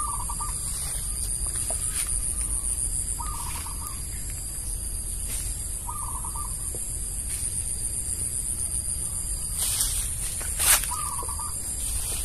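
A chicken clucking in the background: four short calls about three seconds apart, over a steady high-pitched hiss, with a couple of knocks near the end.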